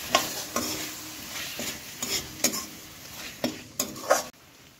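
Metal spatula stirring and scraping a masala of onion, tomato and green peas in a metal kadhai, clinking against the pan several times while the masala sizzles in hot oil. The sound drops away sharply near the end.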